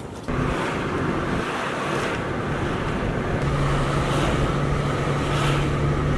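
Steady rushing noise that starts abruptly, joined about halfway through by a low steady hum.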